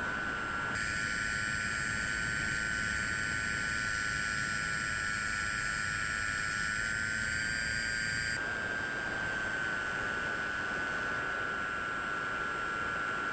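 Bixler 3 model plane's electric motor and propeller whining at a steady high pitch in flight over a rushing hiss. The pitch rises slightly about two-thirds of the way in, then settles back. The hiss changes abruptly about a second in and again near the end.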